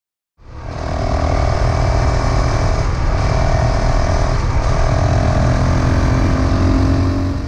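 Motorcycle riding at a steady speed, its engine note held steady under a heavy low rumble, with two brief dips about three and four and a half seconds in. It starts abruptly and cuts off abruptly.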